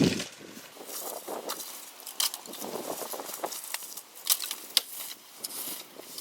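Irregular rustling and crackling with scattered sharp clicks and knocks, as of debris and rubbish being cleared by hand.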